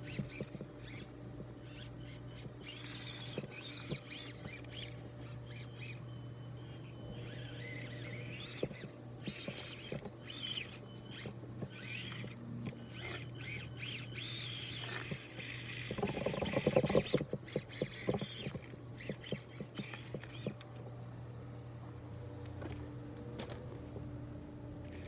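Axial SCX24 1/24-scale RC crawler driving over small rocks and gravel: its small electric motor and gears whir under a steady hum, with scattered clicks as the tyres scrabble. A loud run of rapid clattering comes about two thirds of the way in.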